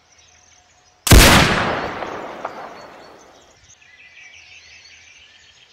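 A single gunshot about a second in, sudden and loud, its echo rolling away over the next two seconds or so.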